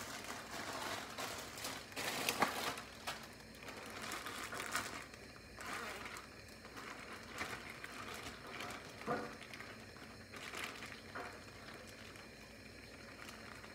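Zip-top plastic bag crinkling and rustling as it is opened and handled to empty marinated chicken into a skillet, busiest in the first few seconds.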